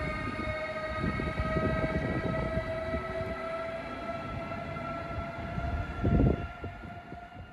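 DSB Litra EB (Siemens Vectron) electric locomotive with Litra ABs coaches running through: a steady electric whine with many overtones rises slowly in pitch over the rumble of the wheels. A loud low thump comes about six seconds in, and the sound then fades.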